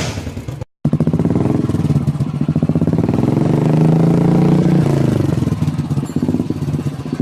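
Royal Enfield Bullet single-cylinder engine running through an aftermarket silencer, a rapid even thump from the exhaust. Its pace and loudness rise a little around the middle, then fall back about five seconds in; a clean cut to silence comes just under a second in.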